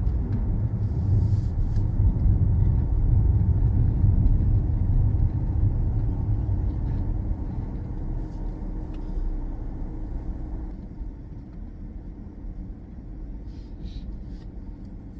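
Ford Fiesta hatchback's four-cylinder engine and road noise heard from inside the cabin while driving: a steady low rumble that fades from about eight seconds in and drops further around eleven seconds.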